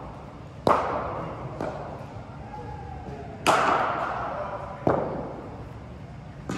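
Sharp knocks of a cricket ball being struck and bouncing in an indoor hall: loud knocks about a second in, past three seconds and near five seconds, with a lighter one between, each ringing on in the hall's echo.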